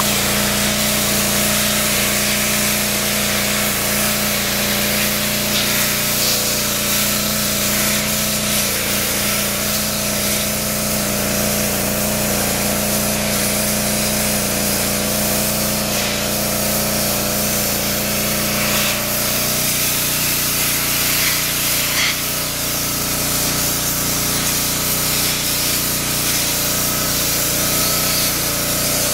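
Commercial pressure washer running steadily, its high-pressure water jet blasting mold and mildew off wooden porch steps, with a constant engine or pump hum under the spray; one low hum drops out about two-thirds of the way through.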